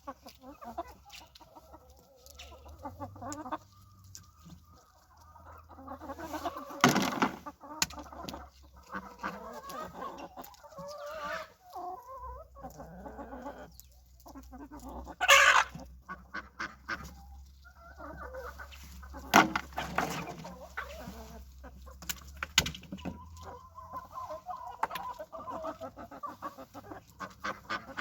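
Chickens clucking steadily, with a few sharp loud knocks now and then.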